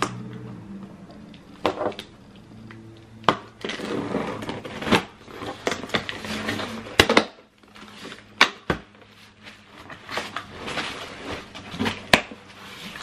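Cardboard box being opened with the tail of a plastic rat-tail comb: scratchy scraping as the comb slits the packing tape and the flaps are pulled apart, broken by several sharp knocks as the box is handled.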